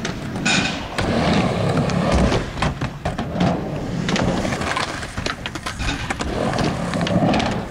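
Skateboard rolling and carving on a halfpipe ramp, wheels rumbling, with scattered clacks and knocks of the board on the ramp.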